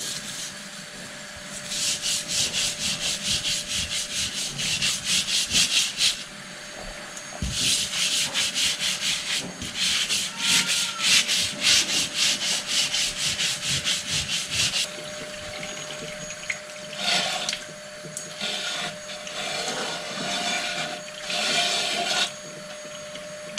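Stiff dish brush scrubbing a textured glass lampshade in a sink, in two long runs of quick back-and-forth strokes at about five a second. In the last seconds come a few softer, uneven rubbing passes as the glass is wiped by hand.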